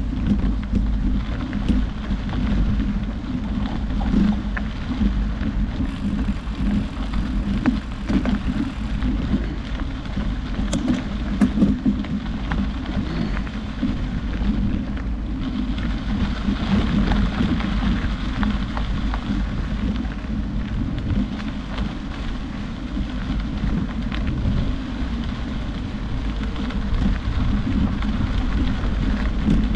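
Wind buffeting the microphone: a steady low rumble with a gritty hiss above it.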